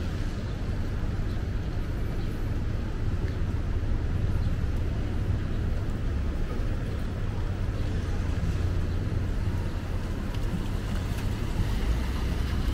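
Street traffic on a wet city road: a steady low rumble of passing cars and vans, with tyre noise from the wet asphalt.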